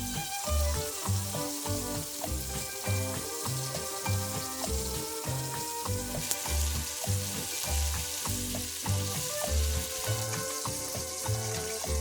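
Background music with a steady bass beat and melodic notes, over a sizzling hiss of food frying that grows brighter about halfway through.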